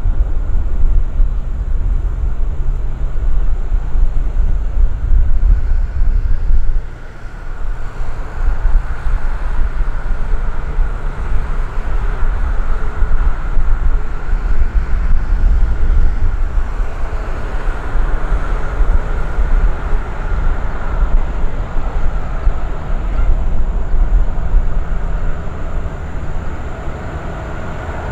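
Twin-engine jet airliner taking off, its engines at takeoff power: a deep rumble with a whine that grows stronger from about twelve seconds in as the jet climbs out. Gusty wind buffets the microphone throughout, easing suddenly about seven seconds in.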